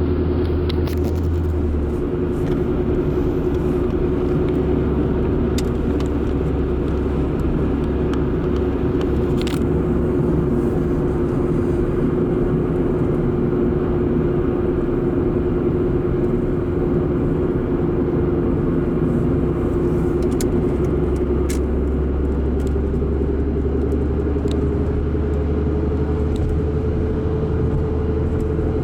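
Chrysler PT Cruiser's 2.0-litre four-cylinder engine and exhaust, with a new muffler, running at raised revs: a steady drone held level, then climbing slightly in pitch about two-thirds of the way through.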